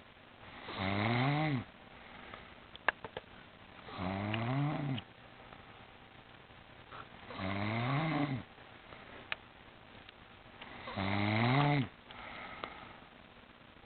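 Snoring in a slow, even rhythm: four snores about three and a half seconds apart, each about a second long and rising a little in pitch, with quieter breathing between them. A few sharp clicks about three seconds in.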